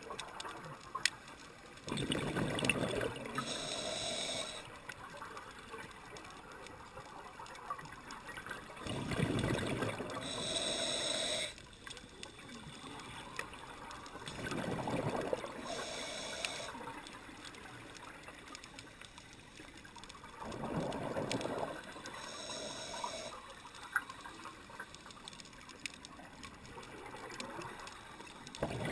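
Scuba diver breathing through a regulator underwater, heard through the camera's waterproof housing: four gushes of exhaled bubbles about six seconds apart, each followed by a short hiss of the regulator.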